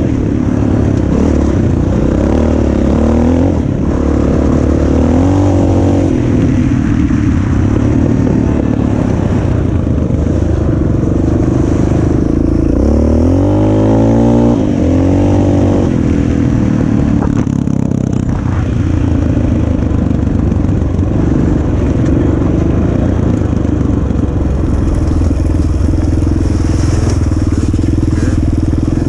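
Yamaha enduro dirt bike engine running under way on a gravel track, heard from on the bike. The engine note rises and falls with the throttle, climbing in pitch around 3 seconds in and again around 13 seconds in.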